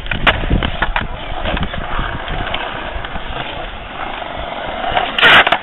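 Skateboard wheels rolling on concrete, with scattered short clacks and a loud sudden clatter near the end.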